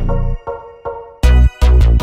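Electronic background music with a deep pulsing bass, synth notes and drum hits.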